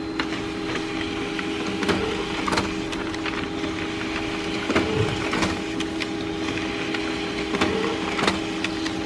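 Samsung Xpress M2020W laser printer running through a print job, feeding pages out: a steady mechanical hum with sharp clicks at irregular intervals.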